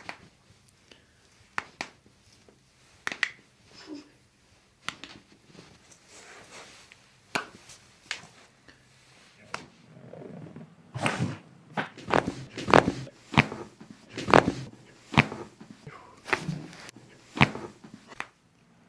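A series of sharp joint cracks and pops from chiropractic adjustments, some coming in quick runs of two or three. They get louder and closer together in the second half.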